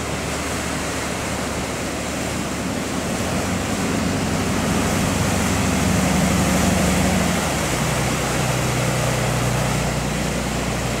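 A fishing boat's engine running hard as the boat pushes through breaking waves and passes close by, over steady surf and sea noise. The engine is loudest about halfway through, and its note drops a little as the boat goes by.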